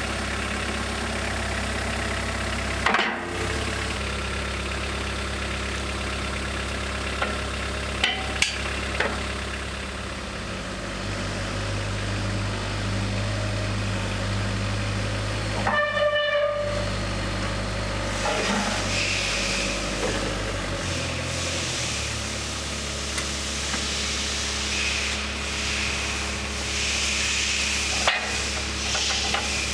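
Combilift CB lift truck's engine running steadily. Its low hum shifts around 11 seconds in and drops near 21 seconds. There is a short horn-like tone near 16 seconds and a hiss from about 18 seconds on, with a few sharp clunks scattered through.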